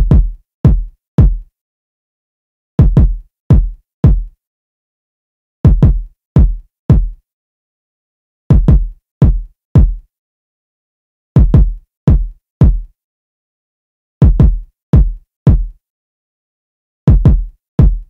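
Drill-style electronic kick drum loop at 168 BPM: short, punchy kicks with a sharp click at the front, in clusters of three or four. The cluster repeats about every three seconds, with silence between and no other drums.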